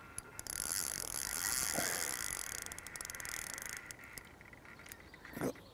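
Fishing reel's clutch clicking rapidly as a hooked carp pulls line off against the drag, with a short knock near the end.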